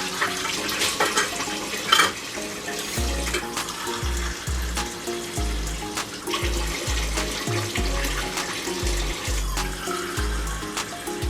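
Background music with steady held notes, a deep bass line coming in about three seconds in, over a constant hiss with a few light clicks.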